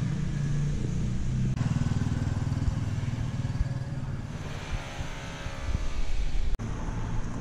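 A small engine, typical of a motorbike, running close by on the street, with abrupt changes in the sound about a second and a half in and again near the end.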